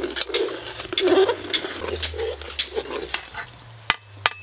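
A ladle stirring boiling khichuri in a large aluminium pot, sloshing and scraping in short strokes about twice a second. Two sharp clicks near the end.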